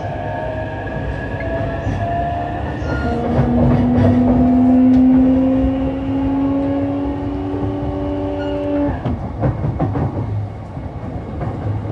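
E233-3000 series electric train running, heard from on board: the traction motors' inverter tones rise slowly in pitch over a steady rumble as the train accelerates under power, then cut off suddenly about nine seconds in. A few knocks from the wheels and running gear come through.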